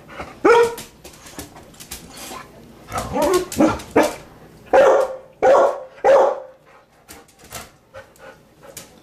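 Pet dog barking and whining in short bursts, with three loud barks in quick succession around the middle. The dog is agitated at the raccoon outside and wants to get out.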